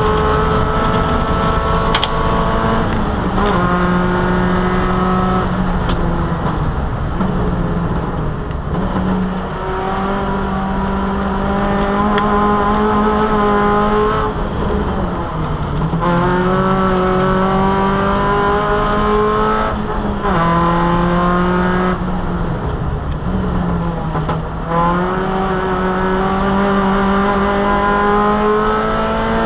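Opel Kadett E race car's four-cylinder engine under hard acceleration, heard from inside the cabin. Its pitch climbs steadily through each gear and drops sharply at each shift or lift off the throttle, every few seconds.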